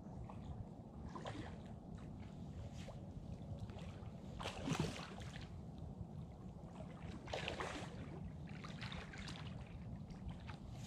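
Steady low outdoor rumble of wind and water, with a few short rustling scrapes, the loudest about four and a half seconds in and others near the end, as an angler works a rod with a fish on.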